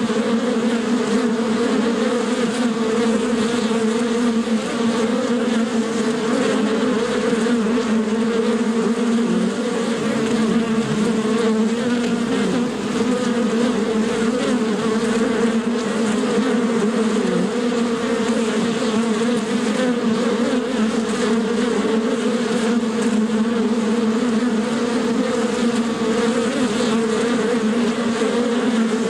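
Bee buzzing in flight: a steady, unbroken drone of wingbeats that wavers slightly in pitch.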